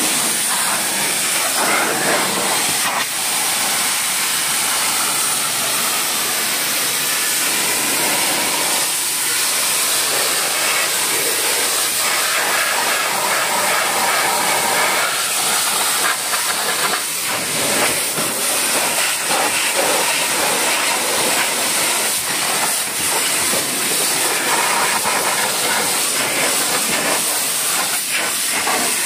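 High-pressure washer jet spraying water onto a car's wheel, tyre and wheel arch: a loud, steady hiss of spray.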